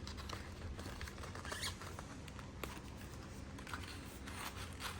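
Faint, scattered light clicks and rustles of a box's packaging being handled as a wristband is worked loose from a snug insert, over a steady low hum.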